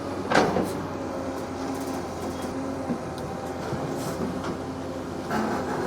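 Excavator's diesel engine running steadily under work, with a single sharp knock about half a second in.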